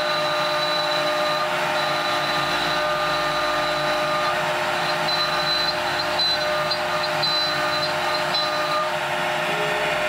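CNC router spindle running steadily with several whining tones over a loud rushing noise, while it machines slots and holes in an MDF spoilboard.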